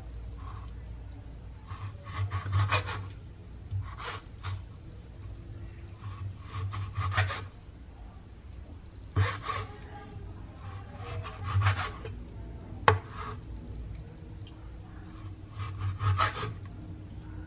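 Kitchen knife slicing raw buffalo meat on a plastic cutting board: short bursts of rasping back-and-forth strokes every couple of seconds, with one sharp knock about two-thirds of the way through.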